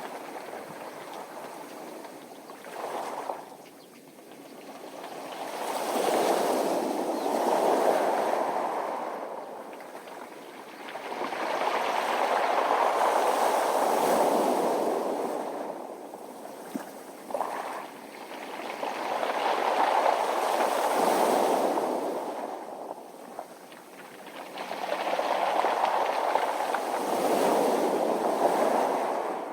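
Sea waves washing up a beach of round, smooth pebbles, rising and falling four times, about every seven seconds, with the pebbles rattling in the surf.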